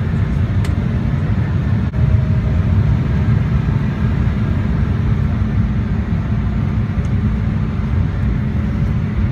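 Passenger airliner landing, heard from inside the cabin: a steady, loud low rumble of engines and airflow, with a brief dip about two seconds in.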